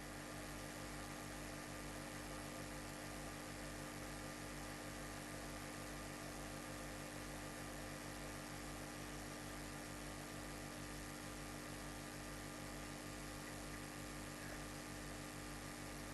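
Faint, steady electrical hum with hiss, unchanging throughout: mains hum in the recording chain.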